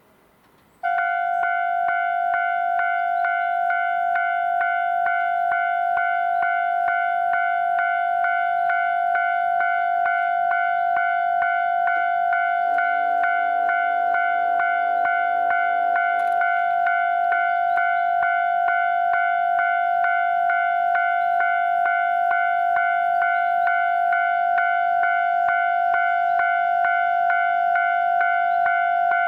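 Japanese railroad crossing warning bell starts about a second in and keeps ringing in rapid, even repeated dings. For about four seconds in the middle, a lower, longer tone sounds beneath it: the approaching Kiha 261 series train's horn.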